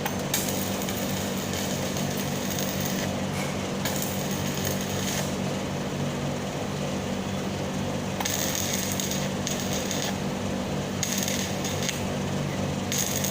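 Stick welding arc crackling and sizzling in several runs of a few seconds each, with short breaks between them, over a steady low hum from the welding machine.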